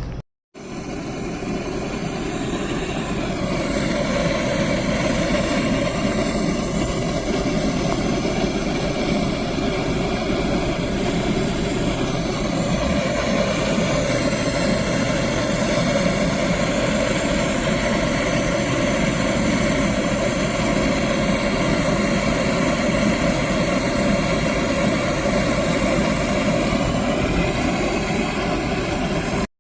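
A machine running steadily, a continuous mechanical drone that builds up over the first few seconds and then holds level.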